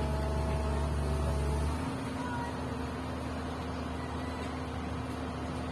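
Komatsu PC200 excavator's diesel engine running steadily with a deep hum that drops in level about two seconds in.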